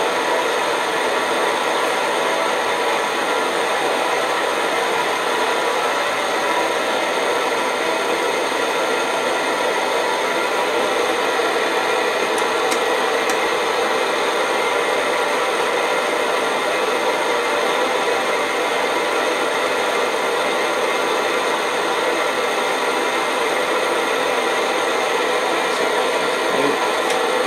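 Optimus 111 paraffin stove's roarer burner running at full flame, a steady, loud roar that does not change.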